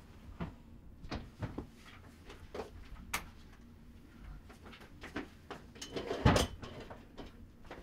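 A person moving about a small room and handling things: scattered soft knocks and rustles, a sharp click about three seconds in, and a louder clatter about six seconds in as things are set down at a desk.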